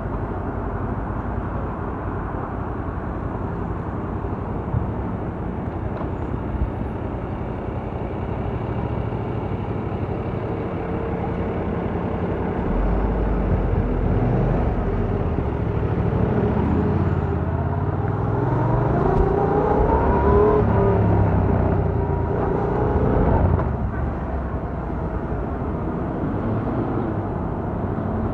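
Stock-exhaust 2017 Yamaha MT-07's 689 cc parallel-twin engine running under wind rush, muffled by a microphone in the rider's jacket pocket. About halfway through it accelerates, its pitch climbing in several steps, then eases back and the throttle closes sharply near the end.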